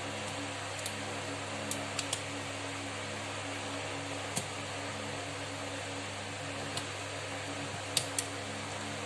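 Steady fan hum under a handful of small, sharp clicks and taps from handling a phone's parts and tools, two of them close together near the end.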